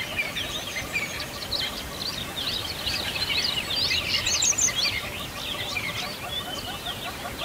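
A flock of small birds chirping and twittering together, many short overlapping high calls with no pause.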